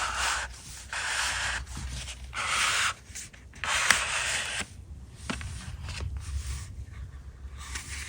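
Hands rubbing and sliding over a cardboard box in several short scraping strokes, strongest in the first half and fainter afterwards, with one small tick about four seconds in.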